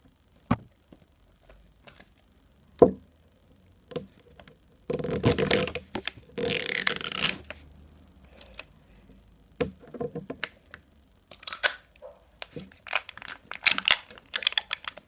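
Plastic wrapping of an LOL Surprise toy ball being pulled and torn open, with two loud tearing rips about five and six and a half seconds in, amid scattered crinkling and small clicks of the packaging.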